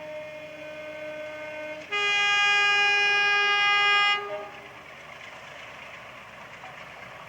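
Locomotive two-tone horn sounded: a quieter high note for about two seconds, then a louder low note for about two seconds, over the running of a train.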